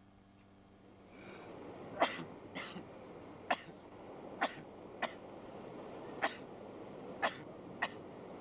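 A man coughing: about nine short, sharp coughs at irregular intervals, the loudest about two seconds in. A steady hiss of surf and wind runs underneath.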